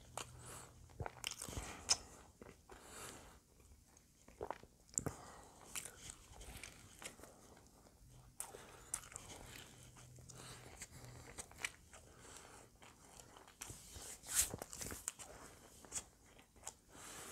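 Close-miked biting and chewing of a hamburger in a soft bun: irregular wet mouth clicks and smacks, with a louder cluster near the end.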